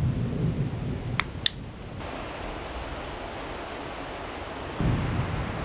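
Outdoor thunderstorm noise: a steady low rumble under a noisy hiss. Two sharp clicks come a little over a second in, and a louder low rumble starts near the end.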